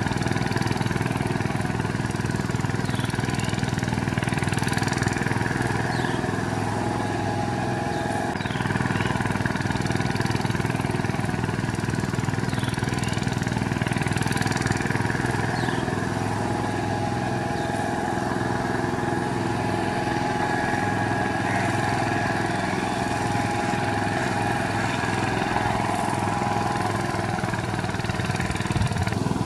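VST Shakti 130 power tiller's single-cylinder diesel engine running steadily as the tiller drags a mud-leveling attachment through flooded paddy mud.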